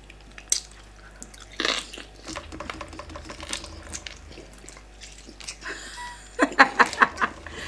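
Close-up eating sounds of yam fufu and soup eaten by hand: chewing, lip smacks and small wet clicks. About six and a half seconds in, a woman's voice cries out briefly.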